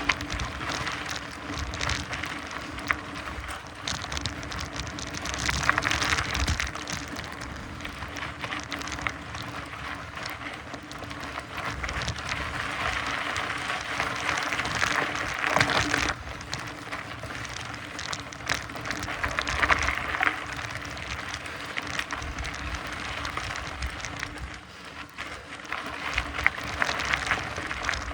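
Mountain bike riding over a dirt and gravel trail: a steady crunching hiss from the tyres with many scattered clicks and rattles, swelling and easing every few seconds.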